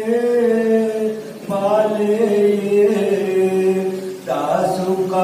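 Men chanting a Muharram noha (lament) through microphones, in long held, slowly wavering notes with short breaks for breath about a second in and near the end.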